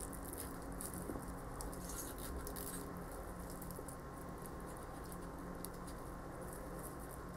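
Faint crinkling and rustling of plastic grafting film as fingers unwind it from an Adenium stem, over a steady low hum.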